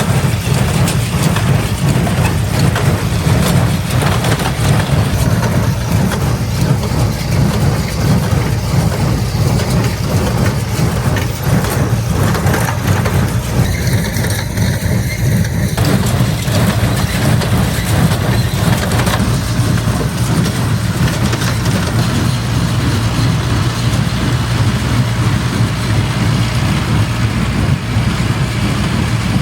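Tractor engine running steadily while pulling a small square hay baler, with the baler's mechanism working along with it.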